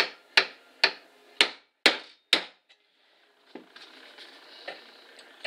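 Hammer striking a round-tipped steel punch six times in quick succession, about two and a half blows a second, driving the link arm pin out of a Weihrauch HW95 air rifle's action. Faint handling sounds follow.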